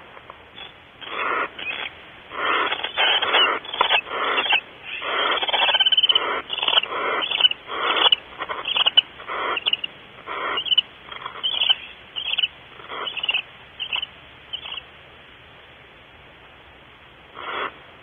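Barn owl giving a rapid series of short, raspy hisses, packed closely together for most of the stretch, then one more near the end.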